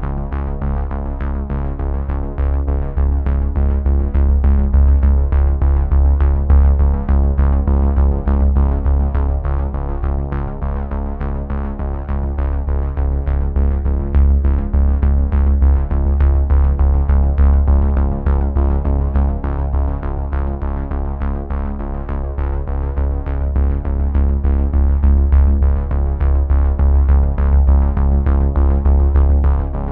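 Background music: sustained chords over a steady, even beat.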